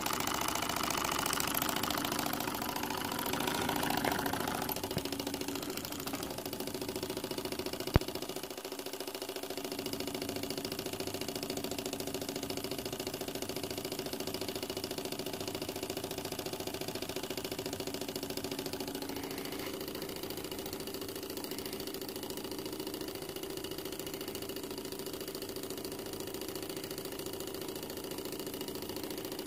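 Small homemade single-cylinder oscillating steam engine, aluminium with a brass piston, running steadily on compressed air. It is louder for the first five seconds, then settles, with one sharp click about eight seconds in.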